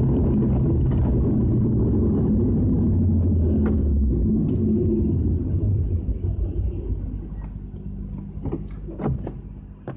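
Nissan Skyline GT-R (BNR32) running with a low, steady rumble, fading away over the second half.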